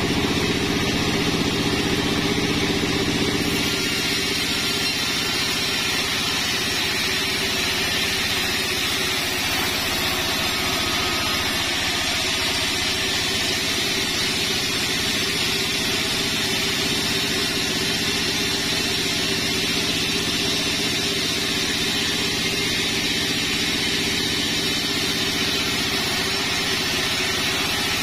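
Band sawmill running steadily while ripping a sengon slab into battens: a continuous machine drone with the noise of the blade cutting through the wood, a little louder for the first few seconds.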